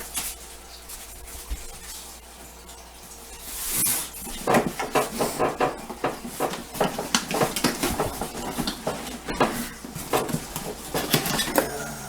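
Packaging and parts of a garage door opener being unpacked by hand: a rustling swell about four seconds in, then a quick run of clicks, knocks and clatter as pieces are handled.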